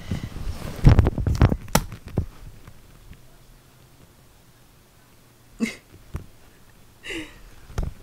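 Handling noise: the phone's microphone bumped and rubbed several times as the camera is moved in close. Near the end come two short breathy puffs of sound.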